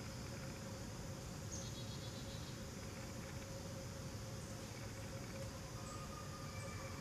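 Faint, steady outdoor ambience of insects calling in late-summer woodland, with a few faint, short, high chirps in the second half.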